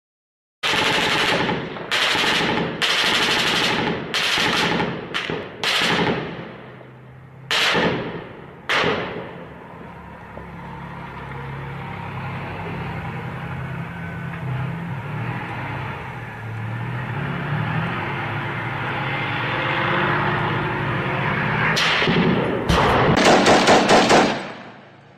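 Gunfire in urban combat: a string of loud, sharp shots with long echoes through the first third, then a long steady low rumble, then a rapid burst of machine-gun fire near the end.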